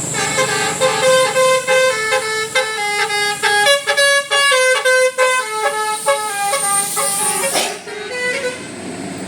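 Bus's Basuri telolet horn, a multi-note musical air horn, playing a quick tune of short stepped notes several times a second, stopping shortly before the end.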